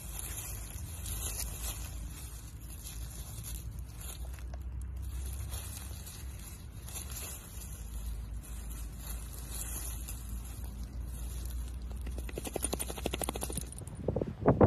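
Dry fallen leaves and grass crackling and rustling as a dachshund rolls and wriggles on its back in them, over a steady low rumble.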